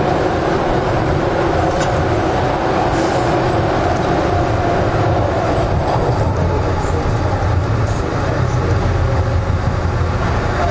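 Toronto (TTC) subway train running through the tunnel and into a station, heard from inside the lead car. It makes a steady, loud rumble with a faint, even whine over it and a few light ticks from the track.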